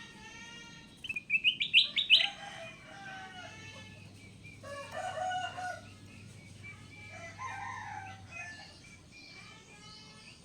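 Caged kutilang emas bulbul calling: a loud, rapid run of sharp rising notes about a second in, followed by shorter warbling phrases a few seconds apart.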